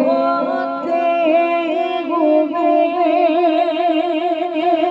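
Man's voice singing a naat (Urdu devotional poem), drawing out long, wordless notes with a wavering vibrato.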